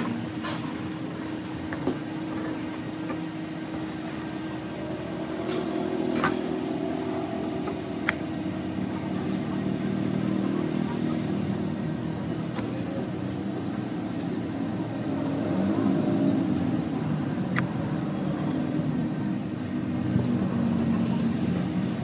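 Steady low background rumble, like distant traffic, with a few light clicks of metal compressor parts being handled.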